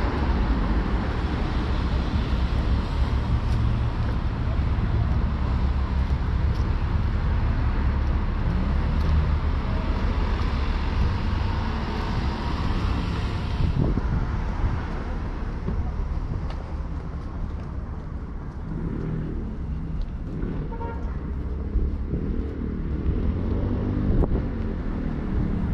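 City street traffic: cars driving past close by, heavy for the first half and thinning out about halfway through to a lower rumble.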